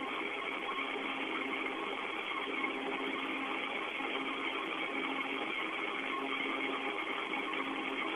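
Steady hiss and hum of an open space-to-ground radio channel from the Soyuz spacecraft, thin and narrow like a radio link, with a few faint steady tones running under the noise.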